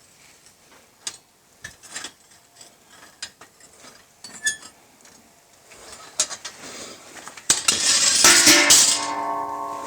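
Scattered small clicks and clinks of handling, then, about seven and a half seconds in, a loud hissing blast of compressed air blowing out the casting mould. A steady hum lingers as the blast dies away.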